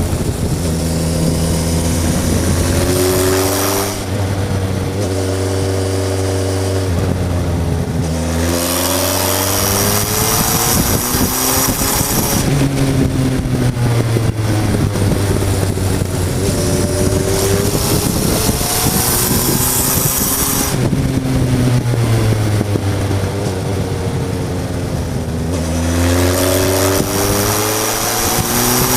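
Suzuki GSF Bandit 1200 S inline-four motorcycle engine with a Hurric aftermarket exhaust, ridden hard uphill: the engine note climbs repeatedly under acceleration, holds, then drops as the throttle is rolled off and the gears change.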